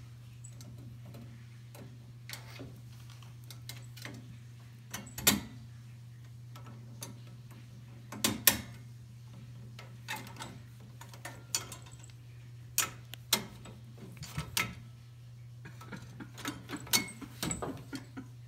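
Irregular clicks and knocks of a metal pet gate's bars as a cat paws, hangs on and rubs against them, with the loudest knocks about five and eight seconds in. A steady low hum runs underneath.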